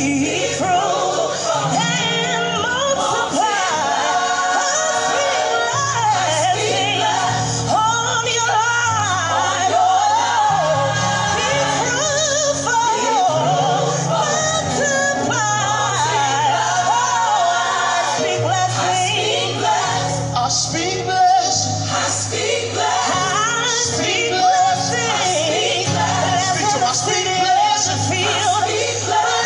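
Gospel music: voices singing a praise song over a moving bass line, with no break.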